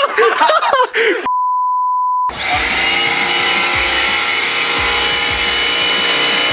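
A censor beep sounds for about a second, a little over a second in. Then a Sun Joe electric pressure washer's motor starts, its whine rising briefly and then running steadily.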